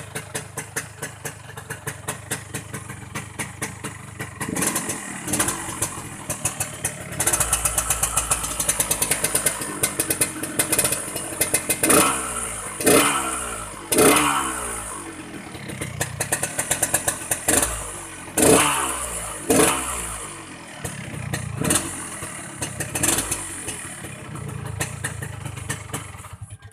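Yamaha RX-King two-stroke single-cylinder motorcycle engine with its snoring ('ngorok') exhaust note. It idles with an even pulse for about four seconds, then is revved in a series of sharp throttle blips, each falling back toward idle.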